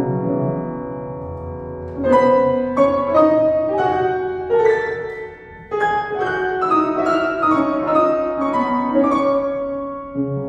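Upright piano played solo. A held chord fades for about two seconds, then a flowing line of separate notes follows and settles into another held chord near the end.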